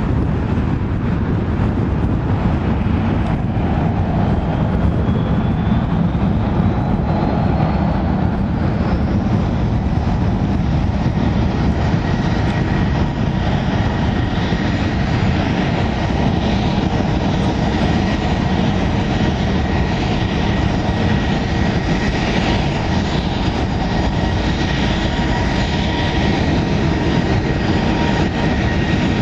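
Boeing 737-800's CFM56 jet engines spooling up to takeoff power over a loud, steady rumble. A whine rises in pitch a few seconds in, then holds steady as the engines run at full thrust.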